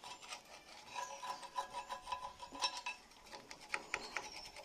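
A hand tool scraping flaking old paint off a steel tractor bumper plate in short, quick, rasping strokes, with a brief pause about three seconds in and a few sharper scrapes after it. The layered white and blue paint is peeling away from the metal.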